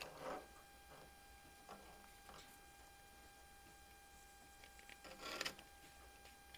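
Faint rubbing of a cloth rag wiping old oil off the metal plunger of a Daisy 188 BB pistol, in short bouts at the start and again, louder, about five seconds in, over a steady faint electrical hum.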